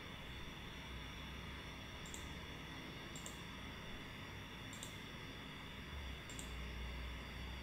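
A computer running hard under rendering load: a steady whirring hum with several faint high steady tones, the low hum swelling about six seconds in. Four short clicks come through it.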